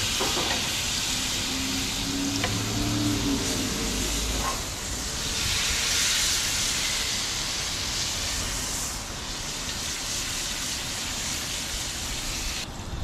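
Shrimp sizzling in a skillet on a two-burner propane camp stove, a steady frying hiss that swells about five seconds in and cuts off sharply near the end.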